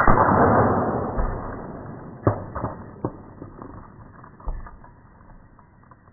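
Air gun pellet striking a 2.5-inch laptop hard drive propped against a cinder block: a sudden loud hit that trails off over about two seconds. It is followed by several sharp clicks and taps as the drive rocks and settles.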